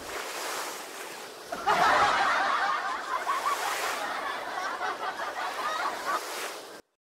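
Small waves washing and splashing onto the sand as a steady, hissy wash. It becomes louder about a second and a half in and cuts off suddenly near the end.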